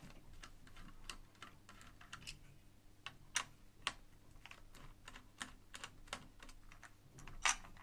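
Irregular light clicks and taps of a small screwdriver turning out the screws of a motherboard's stock AM4 cooler mounts, with a few sharper clicks about three and a half seconds in, about four seconds in and near the end.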